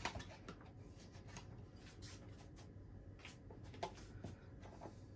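Near silence: faint room tone with a low steady hum and a few soft ticks, the clearest about four seconds in.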